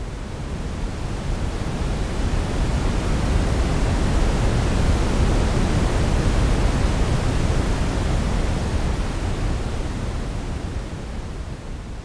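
Simulated ocean wave made from shaped pink noise: a deep, even rush that swells slowly to a peak about halfway through, then dies away again.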